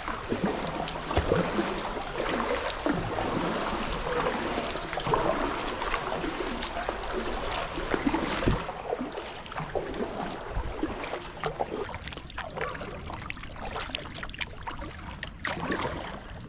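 Kayak paddling: paddle strokes splashing, with water dripping and lapping at the hull. The splashing eases a little over halfway through.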